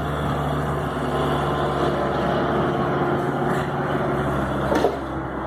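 Bobcat S150 skid-steer loader's diesel engine running steadily, with a brief knock about five seconds in.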